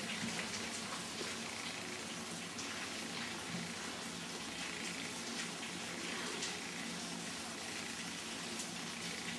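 Steady hiss of background noise with a few faint, short clicks.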